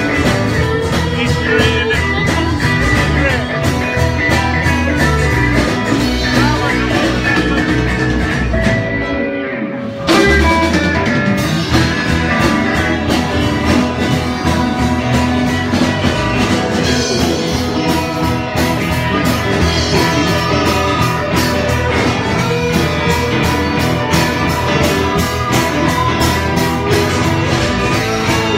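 Live band playing: electric guitars over drums, loud and continuous, with a short dip about nine seconds in before the full band comes back.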